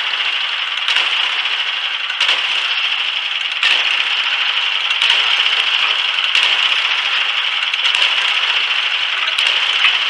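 Small gas engine of a homemade bandsaw sawmill idling with a steady rattle, while a log is rolled onto the mill's steel bunks with several knocks and metal clanks.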